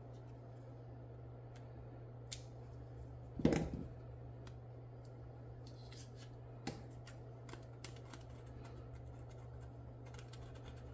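Heat shrink tubing being cut and pried off a plastic filament-dryer roller with a small hand cutting tool: light clicks, snips and scrapes, with one louder knock about three and a half seconds in. A steady low hum runs underneath.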